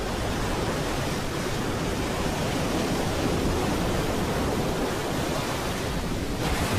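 Heavy sea surf: large waves breaking and churning into foam, a steady, unbroken rush of water noise.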